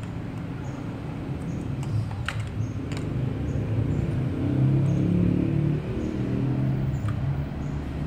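A low rumble that swells around the middle, with a few sharp clicks as the ignition coil-pack electrical connectors are unclipped.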